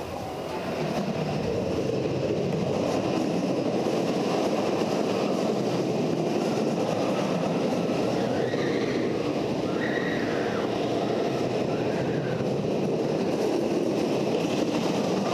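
Steady rumble of the Switchback wood-and-steel hybrid roller coaster's train running along its track, with faint higher-pitched sounds over it about halfway through.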